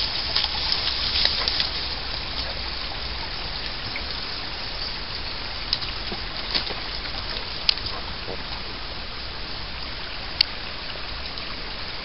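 Leaves and twigs crackling and brushing against the camera as it is pushed through dense brush, thickest in the first couple of seconds. After that comes a steady hiss with a few single sharp snaps.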